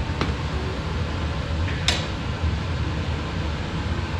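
Steady low mechanical hum of shop background noise, with a faint click near the start and a sharp tap about two seconds in as the bent sheet-metal template is handled over the car's frame.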